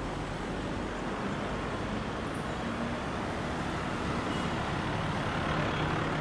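Road traffic: a motor vehicle's engine running, growing slightly louder near the end, over a steady noise bed.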